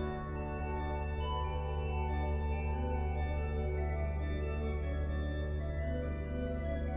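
Organ playing sustained chords over a steady low held pedal note, with the notes above changing.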